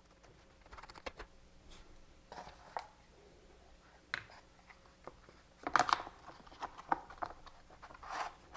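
Scattered clicks and light rattles from a steel saw chain being handled and fitted onto the bar of an E-Go CS1400 battery chainsaw, with a busier run of clicks a little past halfway and again near the end.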